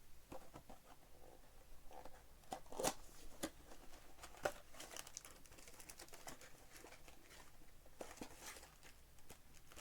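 Trading-card box and pack wrappers being torn open and crinkled by hand: quiet rustling with scattered sharp crackles, the sharpest about three seconds in.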